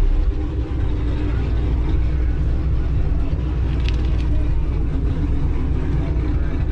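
Chevrolet Camaro SS V8 running steadily at low speed as the car rolls along, with a brief light tick about four seconds in.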